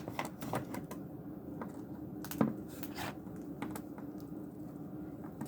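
Scattered light clicks and taps as a cockatiel picks up and handles its fetch object on a hard surface, the loudest tap about two and a half seconds in, over a faint steady hum.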